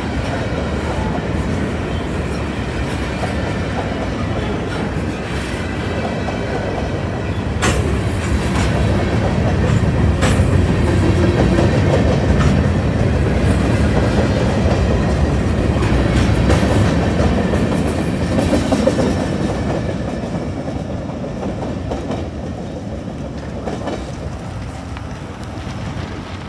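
Freight train of covered hopper cars rolling past at close range: steady rumble and clickety-clack of steel wheels on the rails, with a few sharp clicks. It grows louder in the middle, then fades near the end as the last cars pass and the train moves away.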